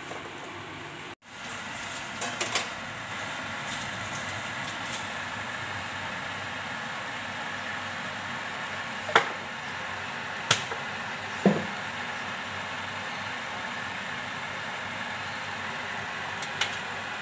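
Instant noodles cooking in a small aluminium pot of water on a gas stove, giving a steady hiss of boiling water and burner. A few sharp knocks and clicks come through, the plastic noodle server against the pot. The sound cuts out briefly about a second in.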